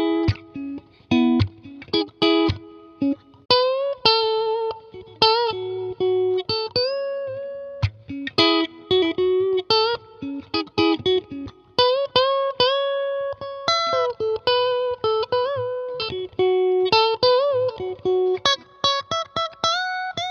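S-style electric guitar played alone: short, choppy chord stabs at first, then single-note melodic lines with string bends and vibrato.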